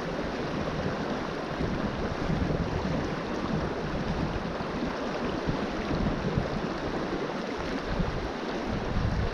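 River water rushing steadily, with wind buffeting the microphone in an uneven low rumble.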